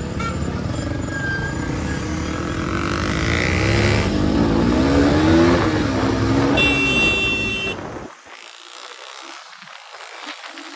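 Motorcycle engines and wind noise while riding in a group; one engine revs up, rising in pitch about three to six seconds in, and a short high-pitched tone sounds near seven seconds. About eight seconds in the sound cuts off abruptly to a much quieter background.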